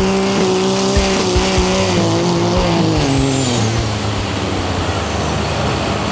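Turbocharged diesel pulling truck under full load on the sled, engine at high revs with a steady pitch. About two and a half seconds in, the pitch slides down as the engine is pulled down by the load, leaving a rougher, lower running sound.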